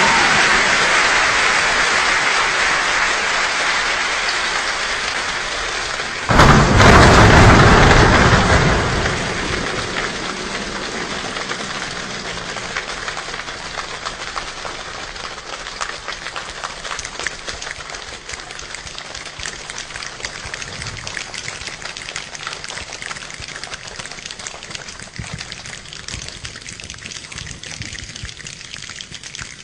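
A choir imitating a rainstorm with body percussion: a dense rain-like patter, a sudden loud burst like thunder about six seconds in that lasts two or three seconds, then the patter thins and slowly fades to scattered clicks.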